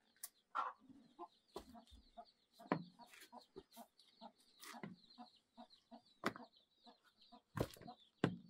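Domestic chickens clucking, under a continuous high twittering, with several sharp knocks scattered through.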